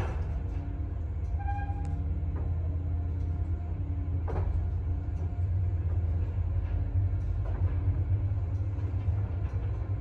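ZREMB passenger elevator car travelling in its shaft: a steady low hum and rumble from the running hoist drive and moving car. There is a sharp click at the start, a brief squeak about a second and a half in, and another click about four seconds in.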